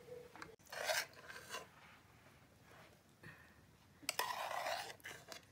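A utensil scraping tomato omelette out of a frying pan while serving, in two bursts of scraping: one about a second in and a louder one about four seconds in.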